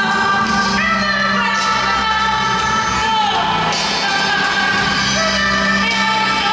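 A song with a singer, played over an ice rink's sound system as accompaniment to a figure skating routine, with sung notes that slide in pitch over a steady beat.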